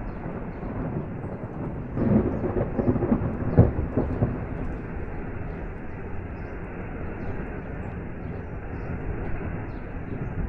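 Steady rush of a waterfall and rain, with a roll of thunder rumbling in about two seconds in, loudest near the middle and dying away a second or two later.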